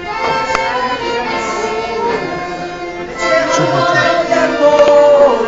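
Dance music with sustained melodic instrument lines, growing louder about three seconds in.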